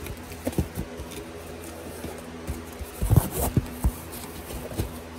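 Cardboard shipping box being handled and its flaps opened, with scattered knocks and thumps, the loudest few a little past halfway. A steady low hum runs underneath.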